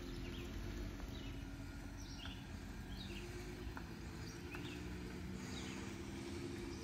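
A small bird chirping about once a second over the steady low rumble of a minivan driving slowly away.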